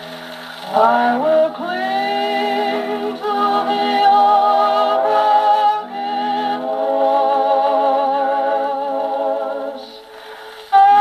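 HMV Model 102 wind-up gramophone playing a 78 rpm shellac record of a sung hymn: sustained notes with vibrato and a thin, narrow acoustic sound with no deep bass. The music dips briefly near the end, then a loud note comes in.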